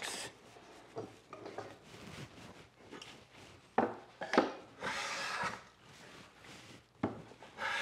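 Hand plane shaving wood to plane the cleat flush with the cabinet box, a couple of short hissing strokes, with a few sharp knocks of tool on wood in between.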